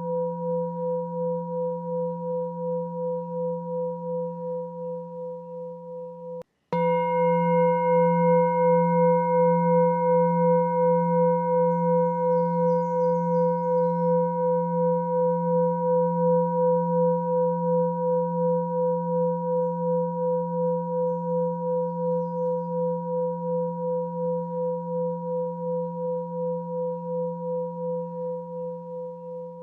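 A meditation sound-frequency tone: a steady low hum with higher ringing overtones that wavers in level about twice a second and slowly fades. It cuts out briefly about six and a half seconds in, comes back sharply at full strength, and fades again.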